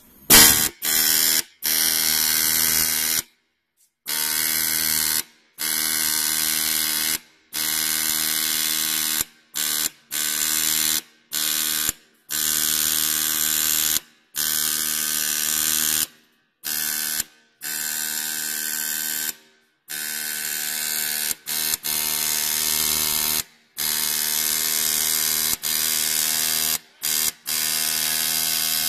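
Pneumatic dot peen marking machine's stylus pin hammering rapidly into a metal plate as it stamps out lettering, a steady buzz in runs of one to two seconds separated by short gaps.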